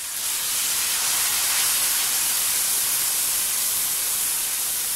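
Mutton stock poured into hot oil with fried onions and spices in a wok, setting off a loud, steady sizzling hiss of steam that jumps up at the start and keeps on.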